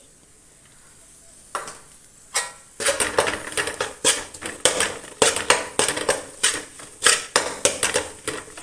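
A metal spoon scraping and clinking against a metal pan as a thick masala with fresh herbs is stirred and mixed. The strokes come quickly and repeatedly, several a second, starting about two seconds in after a quiet moment.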